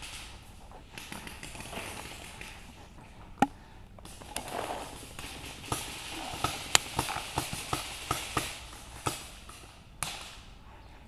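Paintball marker firing: one sharp pop about three seconds in, then a quick, uneven string of about ten more pops, over the rustle of the player's gear.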